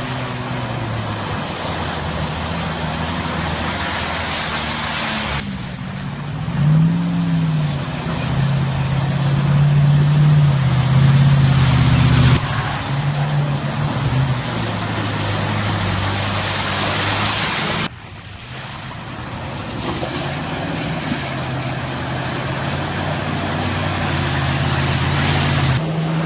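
Off-road vehicle engines running under load and revving through mud, with one rise and fall in engine pitch about seven seconds in, over a loud steady rushing noise. The sound changes abruptly three times as one clip cuts to the next.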